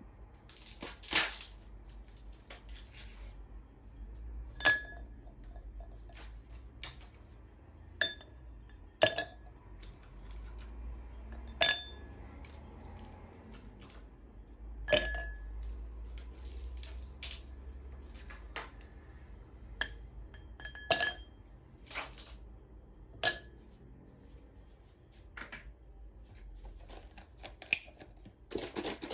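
Dishes and utensils clinking: a dozen or so sharp, irregularly spaced knocks of hard ware, each ringing briefly.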